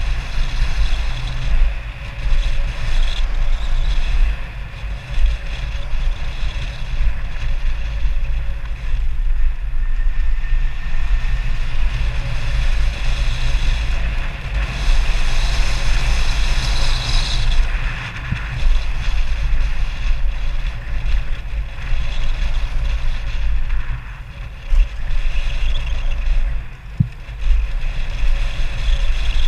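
Wind buffeting the microphone and mountain bike tyres rolling fast over a packed dirt trail, with a few sharp knocks from the bike.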